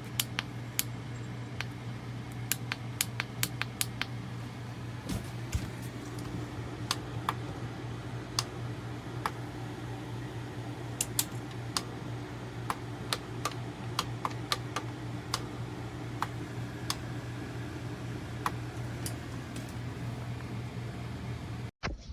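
Electric fan running with a steady low hum, with sharp clicks at irregular intervals, one or two a second; the sound cuts off suddenly near the end.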